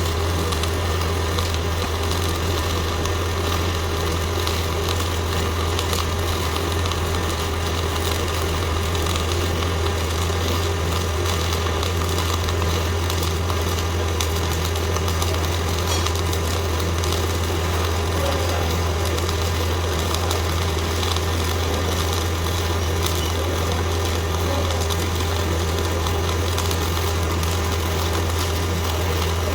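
CO2 MIG welding arc crackling steadily through a long continuous pass, over a steady low hum.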